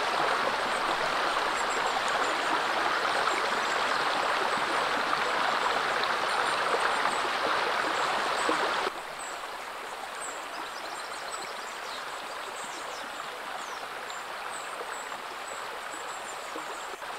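Steady rush of flowing river water from the Indus. It is louder for the first nine seconds or so, then drops suddenly to a quieter, even level.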